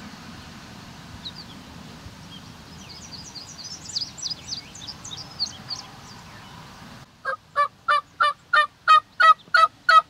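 Faint songbird chirps over a steady outdoor hiss. About seven seconds in, a loud run of evenly spaced turkey yelps starts, about three a second.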